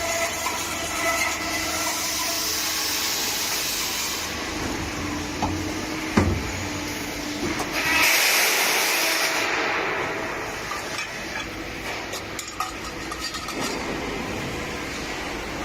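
Automatic burr-free pipe-cutting machine running: a steady mechanical noise with two long bursts of hiss, a sharp knock about six seconds in, and light clicks later on.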